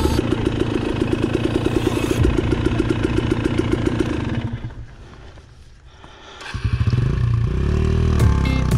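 Dirt bike engine idling with a steady, rapid putter. It drops away about halfway through, then comes back and is revved up and down near the end.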